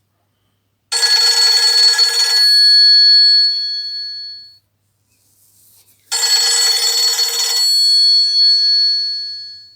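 Nokia C5-00 mobile phone playing an old-style telephone-bell ringtone through its speaker: two rings a little over five seconds apart, each a rattling burst of about a second and a half that leaves a ringing tone fading out.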